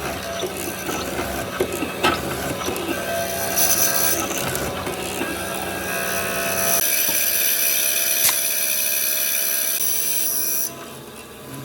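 Tools working wood: knocks and clatter at first, then a power tool running steadily with a high whine from about halfway, stopping abruptly near the end.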